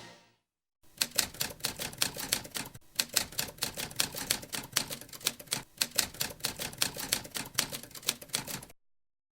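Typewriter keys clacking rapidly and unevenly for about eight seconds, then stopping abruptly.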